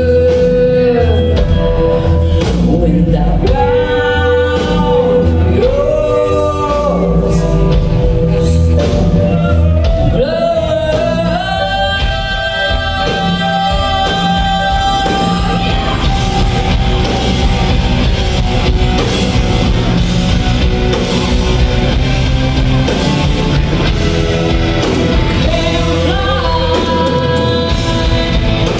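Live rock band playing: a woman sings lead, holding some notes long, over electric guitars, bass, drums and keyboard.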